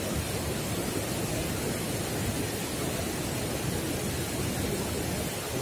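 Steady rush of river water pouring over a low weir and churning below it.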